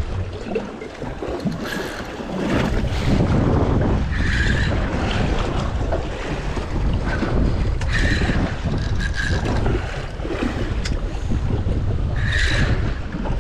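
Wind buffeting the microphone over water slapping around a drifting boat, a steady low rumble. A short high chirp comes through about every four seconds.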